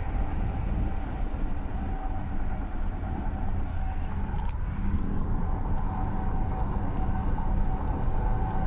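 Steady road and engine noise inside a moving Lexus car's cabin at highway speed, a continuous low rumble with a faint steady hum, and a few light clicks about halfway through.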